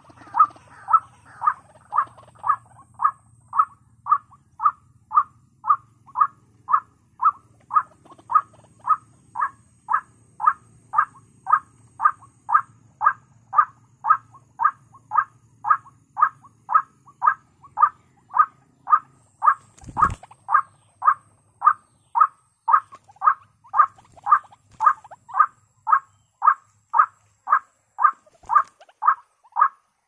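White-breasted waterhen calls, a short harsh 'kwak' repeated at a very even pace of about two a second. This is a lure recording played through a small horn loudspeaker to draw the birds to the snare. A single dull thump comes about two-thirds of the way through.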